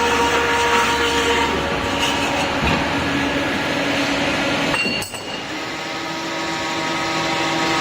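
Automatic steel pipe cutting machine running with a loud, steady mechanical noise and several held tones, with a sharp metallic click about five seconds in.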